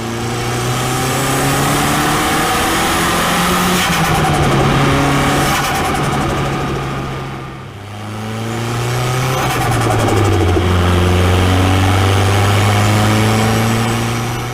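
Turbocharged car engine pulling hard under acceleration in two long runs. Each run builds steadily, with the engine note rising, and there is a brief drop-off between them about eight seconds in.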